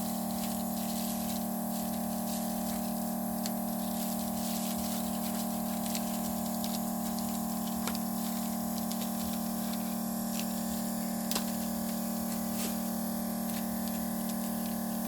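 Steady hum of running electrical repair-bench equipment, unchanging throughout, with a few light clicks of tools or parts being handled.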